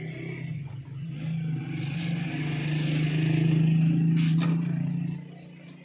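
A steady, low-pitched mechanical hum that grows louder, is loudest three to four seconds in, then fades away about five seconds in. A single short knock sounds about four seconds in.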